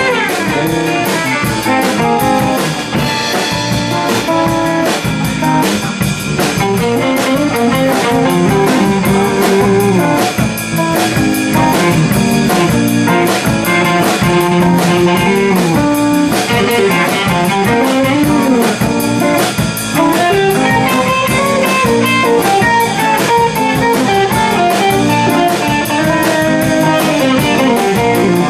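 A live band playing loudly: electric guitars, electric bass and a drum kit together, with a steady drum beat under moving guitar lines.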